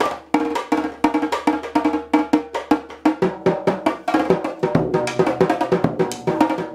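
Acoustic drum kit played with sticks in a fast improvised run of strikes on the toms, several hits a second, with hollow, woody-sounding hits. About halfway through the pattern moves down onto lower-pitched drums.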